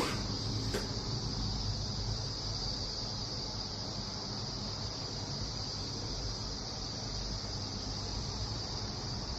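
Steady room tone: an even high-pitched whine or trill over a low rumble, with a click right at the start and a fainter one a little under a second in.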